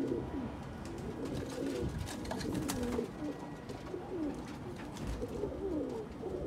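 Several pigeons cooing, low overlapping coos that rise and fall continuously.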